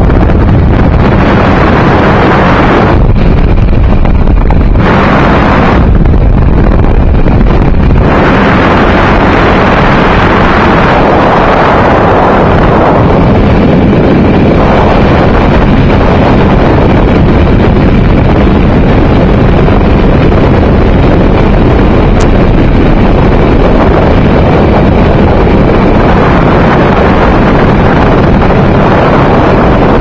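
Light aircraft engine and propeller droning steadily in flight, mixed with heavy wind noise on the microphone.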